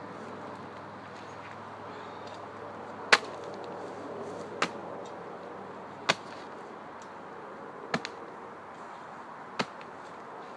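Feltwell-type sword blade chopping into a dead birch trunk: five sharp strikes about one and a half seconds apart, the first, about three seconds in, the loudest, over a steady background hiss.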